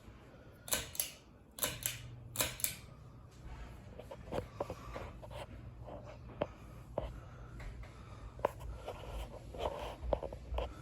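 Ceiling fan's pull-chain switch clicking six times in quick pairs during the first three seconds as the fan is changed to medium speed, then the fan motor humming steadily with scattered faint ticks.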